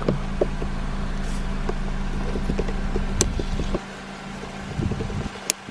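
Small clicks and taps of plastic as a car's USB port module is worked loose from the dash, over a steady low hum that cuts off suddenly about four seconds in. A sharp click comes near the end.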